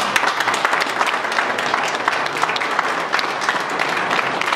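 Audience applauding: many hands clapping together, steadily.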